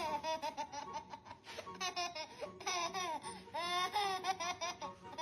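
Baby laughing and squealing in short high-pitched bursts, repeated throughout.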